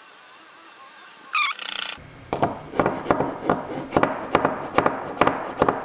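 A steel bar tapping the back of a utility-knife blade to drive it under a 3D-printed part stuck to a BuildTak sheet on glass: about a dozen sharp metal taps, roughly three a second. A short rising squeak comes about a second and a half in.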